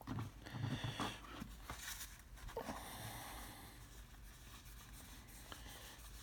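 Faint rustling and light clicks of 2019 Topps Heritage baseball cards being handled and flipped through, busiest in the first three seconds, then fainter, with one more small click about five and a half seconds in.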